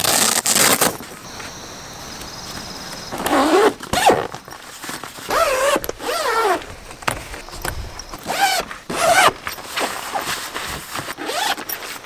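Zippers on the Camvil Crab Tent's window panels being pulled open in several short runs. Each pull is a rasp that rises and falls in pitch, with a pause of a second or two between pulls.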